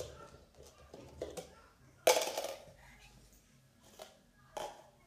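Cups being handled and stacked: a few light knocks, and about two seconds in one loud, sudden clatter that dies away within half a second.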